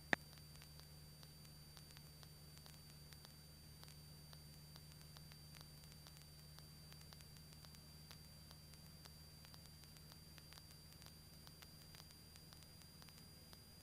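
Near silence on the cockpit intercom audio: a faint steady low hum with hiss and a thin high tone, and one sharp click just after the start.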